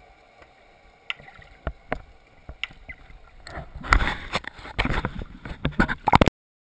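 Underwater sound through an action camera's waterproof housing: a faint hiss, then scattered sharp clicks and knocks that thicken into a dense, loud crackle of knocks from about three and a half seconds in, cutting off suddenly a little after six seconds.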